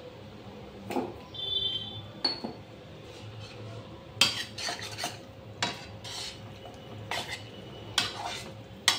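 Metal spatula scraping and knocking against a frying pan while stirring a panful of chopped meat, in irregular strokes that come thicker and louder from about four seconds in.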